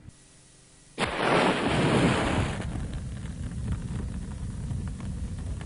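A match flaring alight, heard close up: about a second in, a sudden loud rush of hiss that settles into a steadier burning hiss with a few faint crackles.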